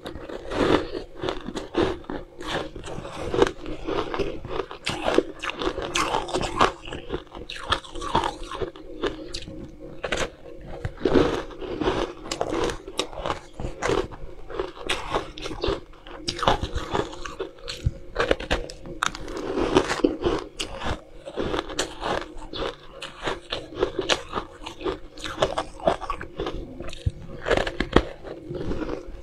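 Frozen pink ice being bitten off and crunched between the teeth: repeated crisp cracks and chewing, one bite after another.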